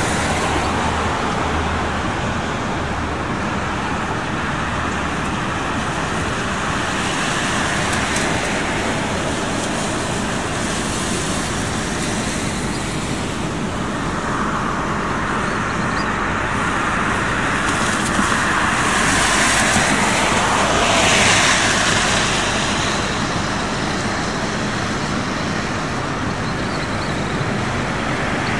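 City buses and traffic driving by: a steady rush of engine and tyre noise that swells as a vehicle passes close, about two-thirds of the way in.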